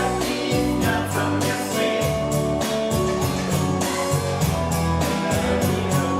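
Music with a steady beat, a strong bass line and sustained notes, with a voice singing.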